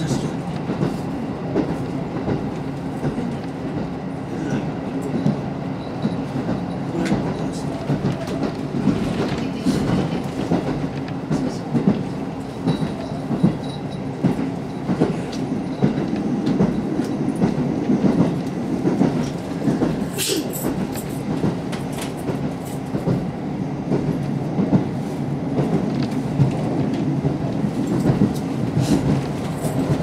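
A KiHa 54 diesel railcar running at speed, heard from inside the car: a steady low drone of engine and running gear, with scattered clicks of the wheels over the rails. There is one sharper, brighter rattle about 20 seconds in.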